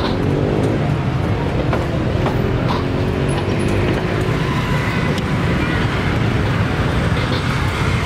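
Steady low rumble of road traffic, with faint voices talking underneath.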